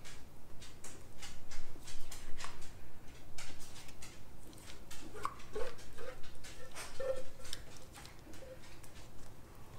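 Silicone spatula scraping and knocking against a stainless steel mixing bowl as runny pudding is poured out, giving many irregular clicks and taps. A few short squeaks come about halfway through.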